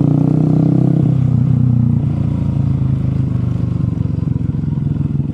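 Motorcycle engine running steadily close to the microphone, a low pulsing rumble that eases off slightly about two seconds in.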